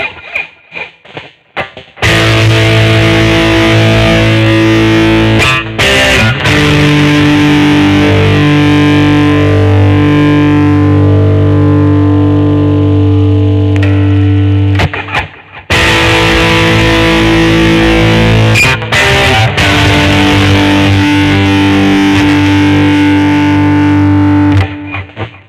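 Schecter Omen 6 electric guitar played through a distorted effects patch: a few short choked stabs, then long, held distorted chords that are cut off and struck again several times.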